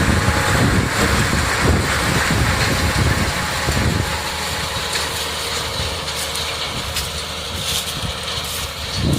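Tractor engine running while driving a two-row Barigelli sugar beet harvester. The low, pulsing rumble eases to a steadier, lighter hum about four seconds in, with scattered clicks and rattles after that.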